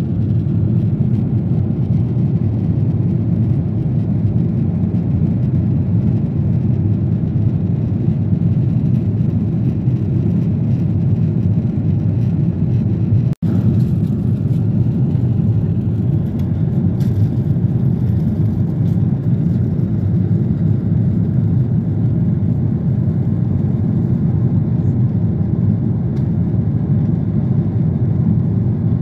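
Steady low rumble of jet engines and rushing air heard inside an airliner cabin in flight, broken for an instant about halfway through.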